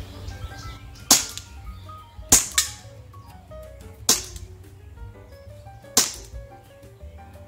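Action Army AAP-01 gas blowback airsoft pistol firing four single shots, each a sharp crack of the gas release and the slide cycling, irregularly spaced one to two seconds apart.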